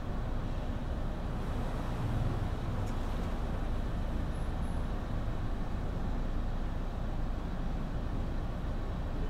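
Steady low rumble of road traffic on a residential street, with a brief low swell about two seconds in.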